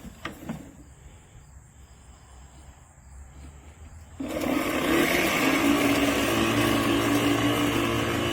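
LawnMaster CLM2413A 24V cordless lawn mower: a few clicks near the start, then about four seconds in the electric motor and blade start suddenly and run on steadily.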